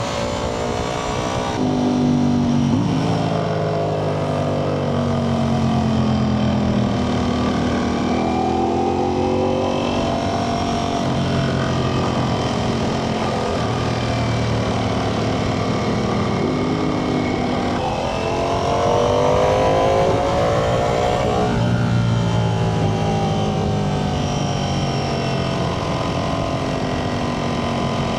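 Ducati Panigale V4 sportbike's V4 engine under way, its pitch climbing and falling as the throttle is opened and eased, with a long climb about two-thirds of the way through that drops off sharply. Wind rush runs beneath it.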